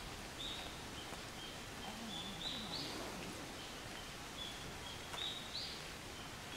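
A bird singing a phrase of short high notes that climb in pitch to a louder final note, repeated every few seconds over faint outdoor background noise.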